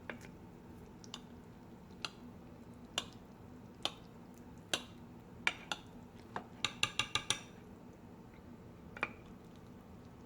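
Cutlery tapping against a plate: single sharp clinks about a second apart, with a quick run of about six taps a little past halfway.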